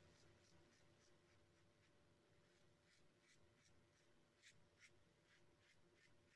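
Near silence, with only very faint, short scratchy strokes.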